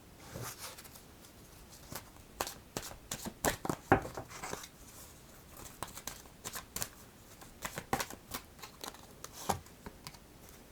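A deck of oracle cards being shuffled by hand: a run of irregular crisp snaps and flicks of card stock, loudest about four seconds in.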